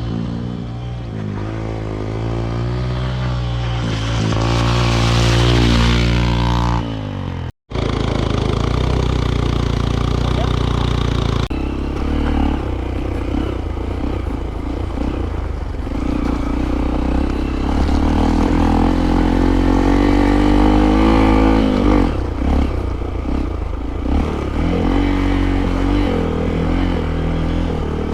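Motorcycle engine running and revving up and down repeatedly while riding off-road, its pitch rising and falling. The sound breaks off for an instant about seven and a half seconds in.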